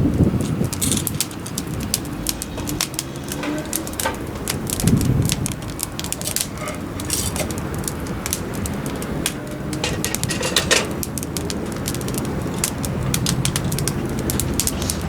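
Wood fire crackling in a fire stand, with many sharp irregular pops and snaps over a low rush.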